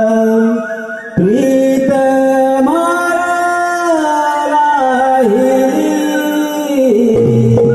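A single voice singing long, held and gliding notes of a devotional folk song, nearly unaccompanied, with a short breath about a second in; a low instrumental accompaniment comes back in near the end.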